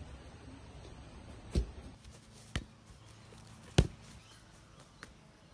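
A few separate sharp thumps, roughly a second apart, the loudest one just past the middle, over a faint room background.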